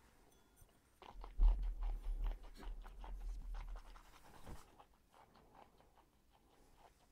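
Mouth sounds of someone tasting a sip of whisky: wet smacking and tongue clicks with heavy breathing, dense from about a second in until about four and a half seconds, then a few soft smacks.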